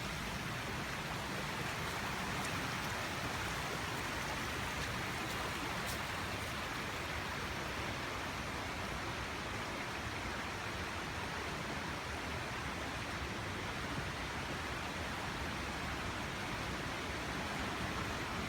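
Rushing water: a steady, even roar of falling and flowing water, unchanging throughout.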